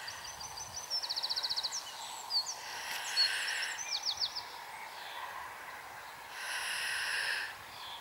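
Outdoor birdsong: a songbird sings a run of quick high notes, a fast trill and a few falling chirps over the first four and a half seconds. Near the end comes a single harsher call lasting about a second, over a faint outdoor hush.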